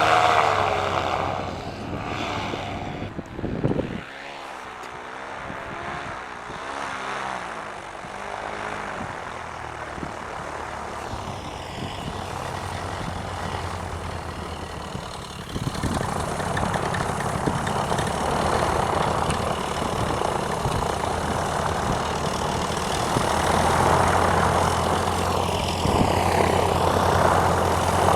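Paramotor engine and propeller running, its pitch wavering up and down. It is loud at first, drops away after about four seconds, then grows louder again from about halfway in and holds a steady drone.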